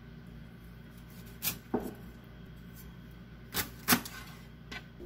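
Kitchen knife cutting broccoli on a wooden cutting board: five sharp knocks of the blade striking the board, in two close pairs and then a lighter one near the end.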